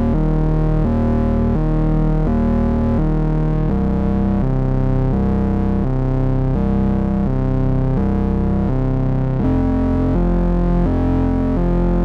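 KORG Monologue analog monophonic synthesizer playing a buzzy, bass-heavy line of single notes through a Donner Yellow Fall delay pedal, changing note roughly every two-thirds of a second.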